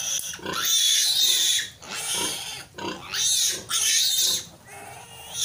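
Newborn piglet squealing, a run of shrill squeals with short breaks between them, as it is held and handled.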